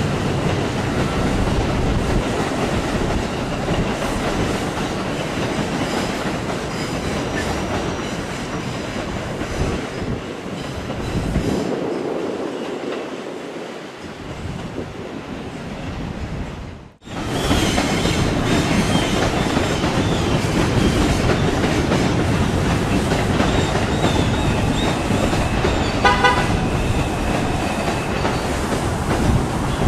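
NYC Subway R142 train rolling past, a steady rumble and clatter of steel wheels on the rails. The sound cuts off abruptly about two-thirds of the way through and picks up again at once with the same rumble, and a short high tone sounds near the end.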